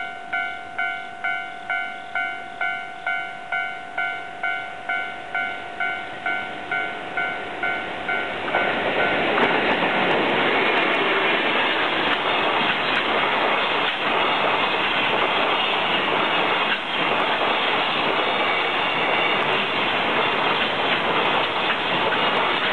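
Japanese level-crossing bell ringing about two and a half times a second. About eight seconds in, a freight train of container wagons arrives, and the steady rumble and clatter of its wheels on the rails covers the bell.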